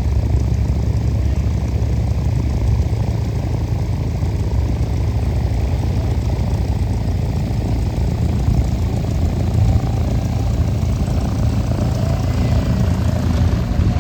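A propeller aircraft's piston engine running steadily, a constant low drone with no clear change in speed.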